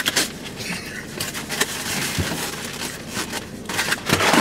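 Foam takeout clamshell container being handled, with rubbing, crackling creaks and scattered clicks.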